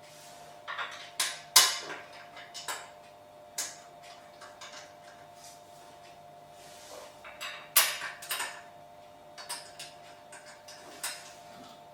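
Irregular metallic clinks, clatters and knocks of screws and steel desk-frame parts being handled while the legs are screwed on, with two louder knocks, about a second and a half in and near eight seconds in.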